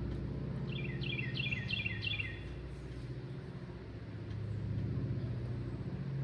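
Chainsaw engine running steadily at low speed. About a second in, a bird gives a quick series of short falling chirps.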